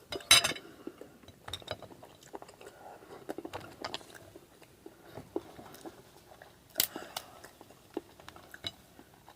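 Close-up eating sounds: chewing and small crunches, with two sharp cracks, one just after the start and one near seven seconds, as crab leg shells are broken open.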